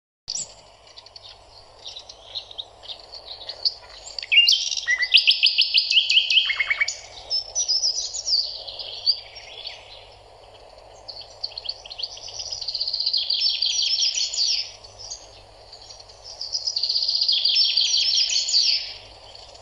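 Songbird singing: several bouts of rapid trilled phrases, each a few seconds long, over a faint steady hiss.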